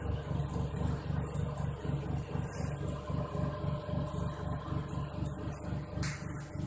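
Small animal-feed pellet mill driven by a 1 HP electric motor, running steadily with an even low pulsing of about four or five beats a second.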